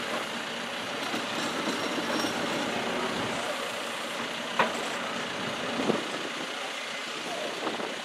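John Deere backhoe's diesel engine running steadily while the boom and bucket are worked, with two short knocks about four and a half and six seconds in.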